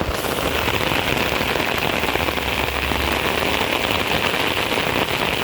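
Steady rain falling hard, louder from the first moment on.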